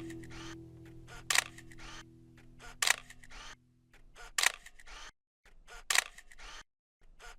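Camera shutter clicks, one about every second and a half, each with a short noisy tail, while a last guitar chord fades out.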